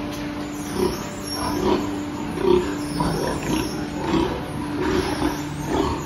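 Crated sows in a pig barn grunting repeatedly, a short call every second or so, over a steady hum.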